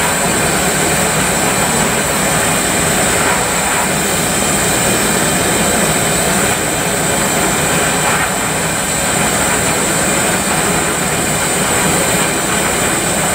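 Glassworking bench torch burning with a steady rushing hiss as glass is heated in its flame.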